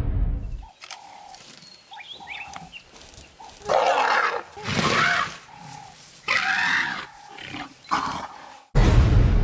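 Baby elephant screaming in four loud, rough, short calls through the middle. A loud low rumbling noise fills the opening moment and starts again suddenly near the end.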